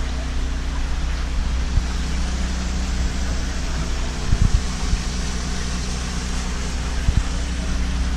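A 7000-running-watt gasoline generator running steadily with a constant hum, over water splashing from return pipes into fish tanks. A few brief low bumps about four and a half and seven seconds in.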